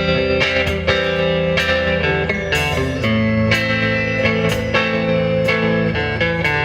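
Guitar-led music with a steady beat, electric guitar over bass and drums.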